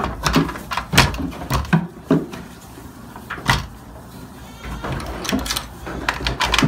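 Wooden pallet gate of a goat pen knocking and clattering as it is handled and pushed: several sharp knocks at uneven intervals, the loudest about a second in and a quick cluster near the end.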